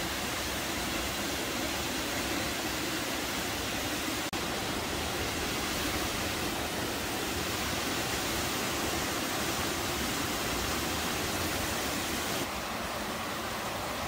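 Steady rushing of a waterfall, an even hiss of falling water. There is a brief click about four seconds in, and the sound turns slightly quieter near the end.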